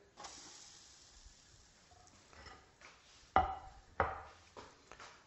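Pancake sizzling softly in a non-stick frying pan just after being flipped, fading over the first second or so. A little past halfway, two sharp knocks about half a second apart.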